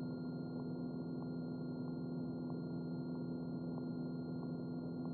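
Steady drone of a Piper Cherokee's engine and cabin in flight, heard muffled through the cockpit intercom, with a constant electronic whine over it.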